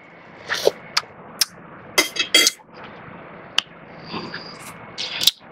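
Mouth sounds of tasting curry from a spoon: a scattered series of short slurps, smacks and clicks over a faint steady hiss.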